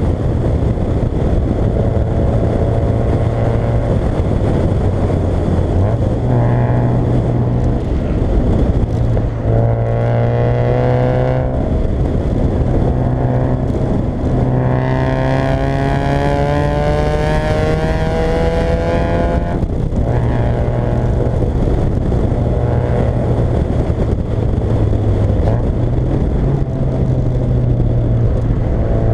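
Fiat Coupé 1.8 16v four-cylinder engine driven hard, revs climbing under acceleration: a short climb about ten seconds in, then a long pull from about fifteen to nineteen seconds that drops sharply at a gear change, over steady road noise.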